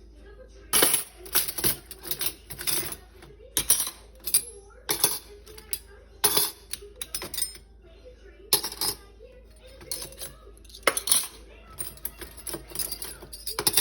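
Silverware clinking as forks, spoons and knives are taken from a dishwasher silverware basket and set into a cutlery drawer's compartments: about a dozen sharp metal clinks, irregularly spaced about a second apart.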